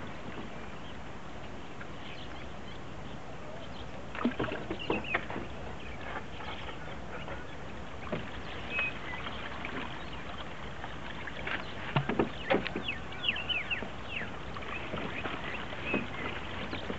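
Water splashing and dripping around a bamboo raft being poled along, in clusters of small splashes and plinks about four and twelve seconds in, over a steady hiss.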